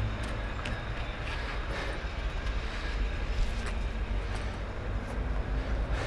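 Steady low outdoor rumble, with a few faint scattered taps of a climber's hands and shoes on a concrete column.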